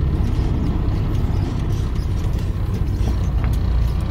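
Tractor-trailer's diesel engine running, heard from inside the cab: a steady low rumble.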